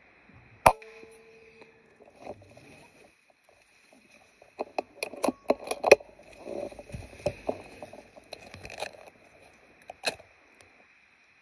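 A PCP air rifle fires once about a second in: a sharp crack followed by a brief ringing tone. Later come a run of clicks and knocks as the rifle is handled, and one more click near the end.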